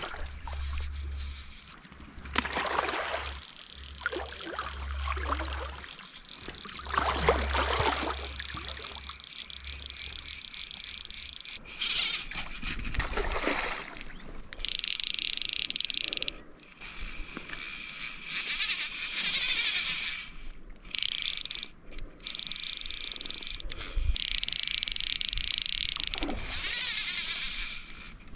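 Orvis fly reel's drag ratcheting in repeated runs of a second or two as a hooked trout takes line, starting about halfway through. Before that, wind rumbles on the microphone.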